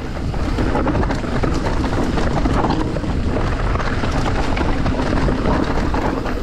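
Mountain bike ridden fast down a rocky trail: steady wind rushing over the microphone, with tyres on loose rock and many small knocks and rattles from the bike over the bumps.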